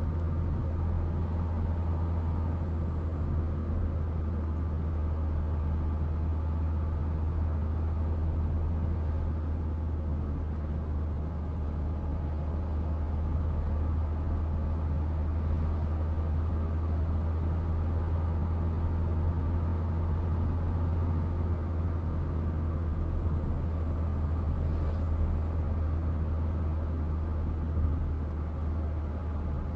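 Steady low engine and road rumble of a car heard from inside its cabin while driving at a constant speed.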